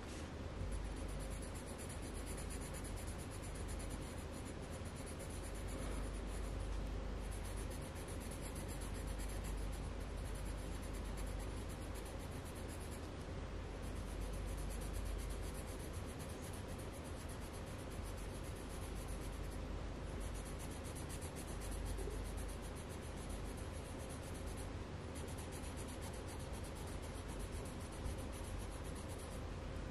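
Coloured pencil scratching steadily on paper as an area is shaded in.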